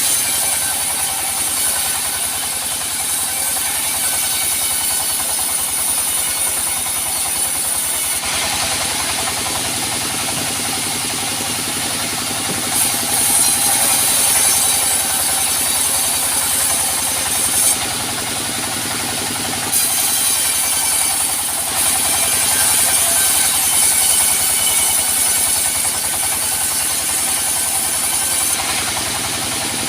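Band sawmill running steadily while its blade saws a teak log. A bright high hiss sets in and drops away in several long stretches over a constant machine drone.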